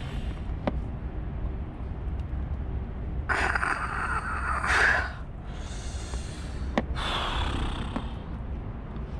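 A person breathing hard: three long, noisy breaths, the loudest about three to five seconds in, over a low steady rumble. There are two sharp clicks, one near the start and one about seven seconds in.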